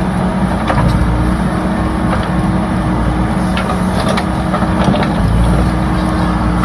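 Heavy diesel engine running steadily, its low rumble swelling a couple of times, with scattered light knocks and clatters over it.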